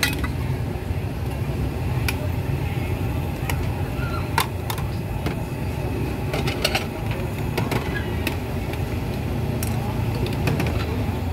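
Busy street ambience: a steady low traffic rumble with indistinct voices in the background and scattered sharp clicks and clinks.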